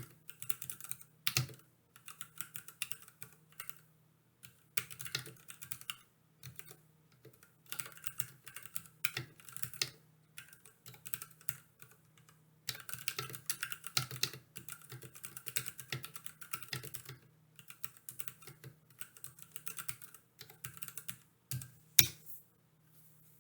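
Typing on a Ducky Mecha SF mechanical keyboard: quick runs of key clicks broken by short pauses, with one louder single keystroke near the end.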